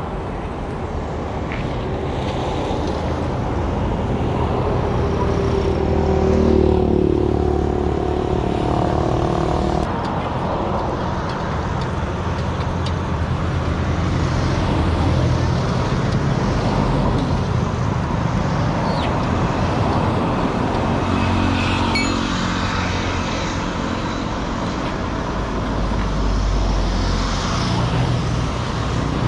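Motor vehicle engine running on the road with steady road and traffic noise, its pitch rising and falling a couple of times as it changes speed.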